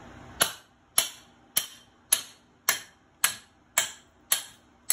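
Metal hammer striking the spine of a forged chopper knife, batoning the blade down through a wooden post as a test of the blade: nine sharp metallic strikes at an even pace, just under two a second, each with a short ringing tail.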